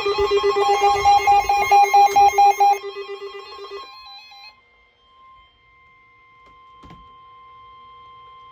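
A weather radio receiver's electronic alert alarm, pulsing rapidly at about six pulses a second, fading out between three and four seconds in. Under it, and then alone at a fainter level, is the steady 1050 Hz NOAA Weather Radio warning alarm tone, which signals that a warning is about to be read. There is a short click about seven seconds in.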